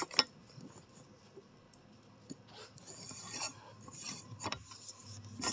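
Faint rubbing and scraping of a phone being handled, with a sharp click just after the start and another about four and a half seconds in.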